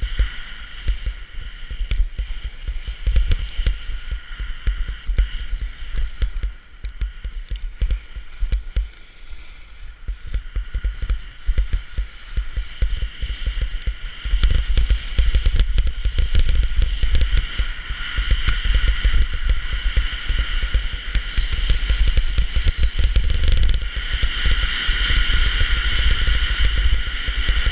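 Wind buffeting a GoPro's microphone on a fast ski descent, with the skis scraping and hissing over hard-packed snow. It gets louder about halfway through and again near the end.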